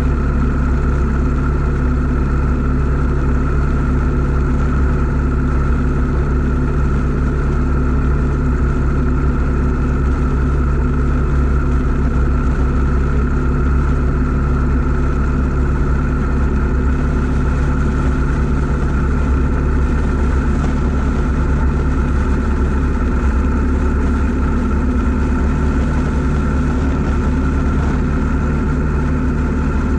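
2012 Yamaha V Star 950's air-cooled V-twin engine running steadily at cruising speed, heard close up at the front crash bar. Pitch and level stay nearly even throughout.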